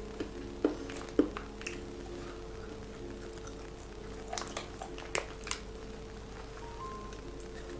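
Someone chewing a piece of spicy pickled mango snack: a few sharp mouth clicks and smacks over soft background music with held notes.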